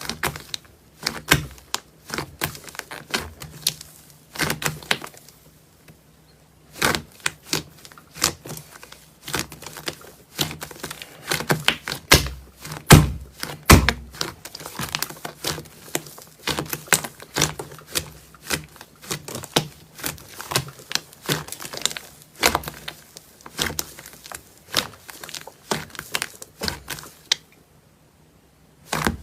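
Slime being squeezed and pressed by hand, making a fast, irregular run of sticky clicks and crackling pops, with a brief pause about five seconds in and another near the end.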